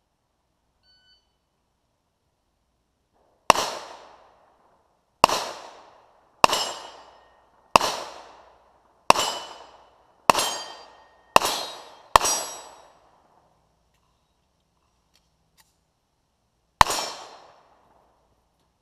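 Nine handgun shots on steel targets: eight in quick succession over about nine seconds, then one more after a four-second pause. Each shot is followed by a fading ring of struck steel.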